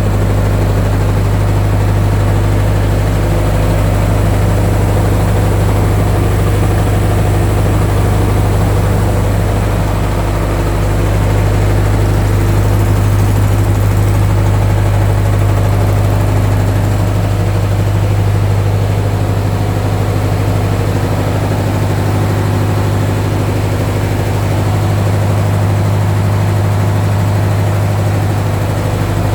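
Reconditioned Mitsubishi 4D32 four-cylinder diesel engine idling steadily on a test run.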